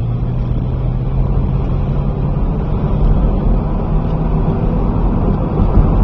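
Ford Fairlane driving at speed, heard from inside the cabin: steady engine and road noise, the engine note stepping up slightly about a second in.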